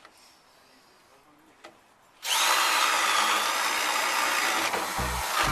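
Bosch GSB 16RE corded impact drill boring into a thicker piece of wood, starting about two seconds in and running steadily for about three seconds, with a couple of low knocks near the end.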